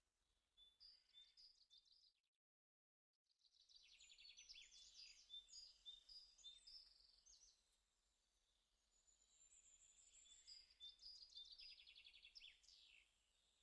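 Faint birdsong: many short chirps and trills from songbirds, cut by about a second of complete silence near the start.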